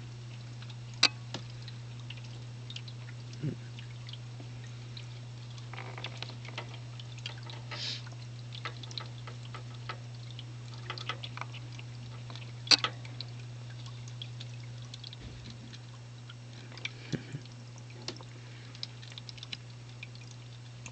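Small tabletop waterfall trickling and dripping into its pool over a steady low hum. Scattered sharp clicks and ticks run throughout, two of them loud: one about a second in and one a little past the middle.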